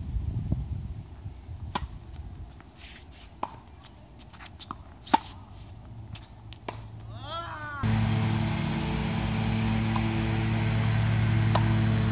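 Tennis ball struck by rackets during a rally: about four sharp hits roughly a second and a half apart, the third the loudest, followed by a brief squeak. About eight seconds in the sound changes abruptly to a steady low mechanical hum.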